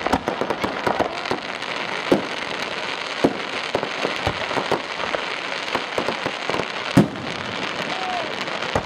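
Aerial fireworks bursting: a continuous dense crackle with sharp bangs scattered through it, the loudest about seven seconds in.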